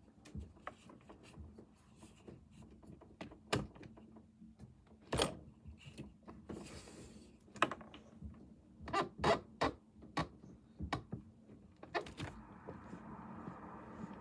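Clicks, knocks and thunks of a locked window's latch and frame being worked to open it. Near the end a steady rushing noise of wind from outside sets in and grows.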